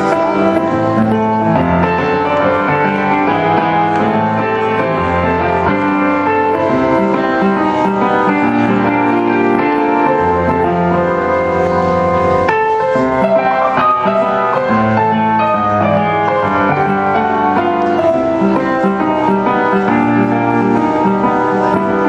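Solo piano playing: a steady flow of full chords over low bass notes, with no break, and a new chord struck about halfway through.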